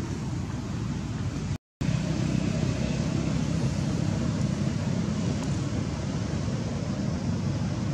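Steady low rumbling background noise with no distinct calls or voices, cutting out completely for a split second about one and a half seconds in.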